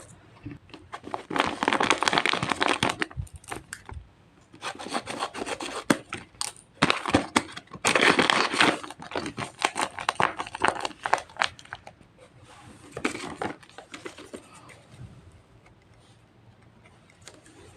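Paper crinkling and tearing in several bursts, with quiet gaps between, as a handmade paper squishy is unwrapped.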